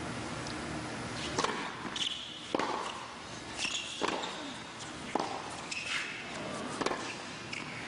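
Tennis rally on a hard court: the serve about a second and a half in, then racket strikes and ball bounces going back and forth as a string of sharp hits, roughly one every half second to a second.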